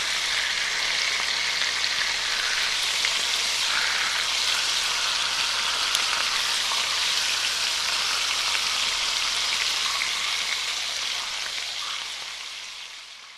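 Steady rushing hiss of water, fading out near the end.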